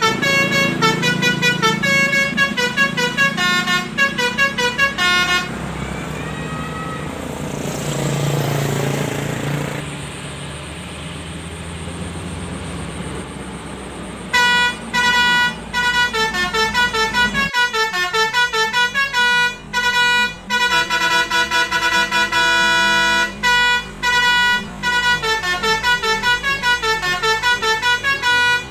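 Telolet bus horn, a multi-tone musical horn, playing fast tunes of short staccato notes. The horn breaks off for several seconds in the middle, leaving only traffic noise, and then plays again.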